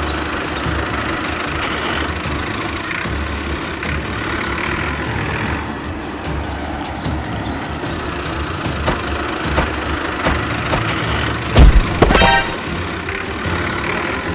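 Steady engine-like running sound of a miniature model tractor as it drives, with a short loud burst about twelve seconds in.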